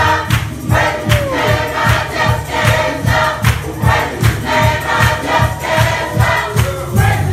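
Gospel choir singing to a steady beat, about two beats a second.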